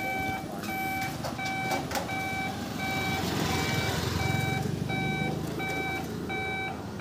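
Level crossing warning beeper sounding a regular series of short electronic beeps, about three every two seconds, as the boom barriers lower to close the road for an approaching train.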